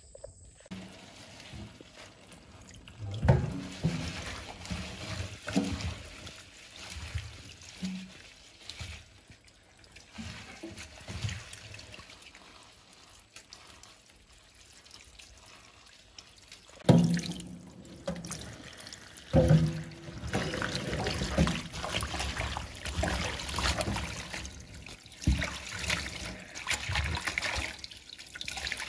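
Tap water running into a stainless steel sink while hands rinse and rub ivy gourd leaves, with splashing and a few knocks against the sink. The splashing grows busier in the second half.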